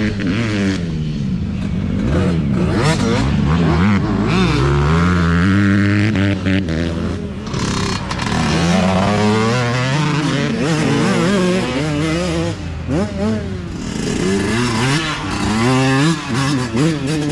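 Youth dirt bike engines revving and shifting as several bikes ride past one after another, the engine pitch climbing and dropping again and again, with more than one engine often heard at once.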